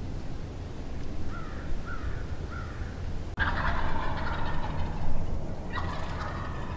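Wild turkey gobblers gobbling: two loud rattling gobbles about two seconds apart, the first about three and a half seconds in, after three short rising calls.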